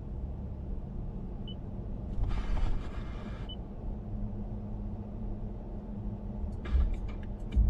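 Steady low rumble inside the cab of a moving Toyota Tacoma with its 3.5-litre V6, with short beeps as the radio touchscreen is pressed. About two seconds in comes a second-long burst of hiss from the radio, and near the end the radio begins to play.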